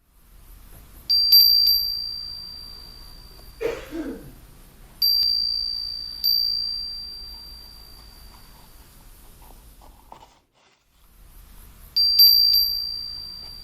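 A high-pitched chime struck four times, each strike ringing out and fading slowly over several seconds. A short rustle or knock comes between the first and second strikes.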